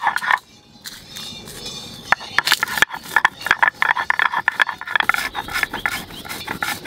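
Stone muller rubbed rapidly back and forth on a textured stone grinding slab (shil-nora), crushing dry-roasted whole spices (mustard seeds, dried red chillies and cumin) with repeated gritty scraping strokes. There is a brief pause about half a second in, then the strokes resume and grow stronger from about two seconds.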